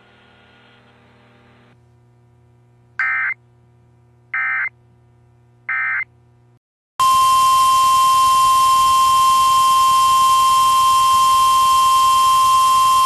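Emergency Alert System end-of-message data bursts: three short warbling digital chirps about 1.4 s apart. After a brief gap comes a loud, steady single-pitch NOAA Weather Radio warning alarm tone, about 1050 Hz, over hiss, which signals that a new warning is about to follow.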